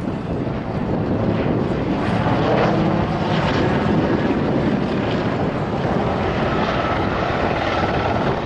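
AS 532 Super Puma helicopter flying a display, its main rotor and twin turbine engines making a steady, continuous noise.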